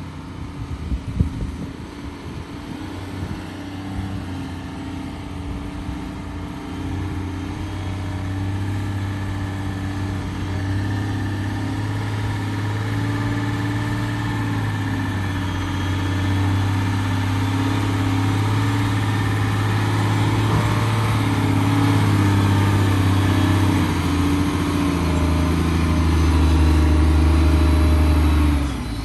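Heavy diesel engine of construction machinery running steadily, growing louder and settling at slightly different pitches a few times. A short sharp knock comes about a second in.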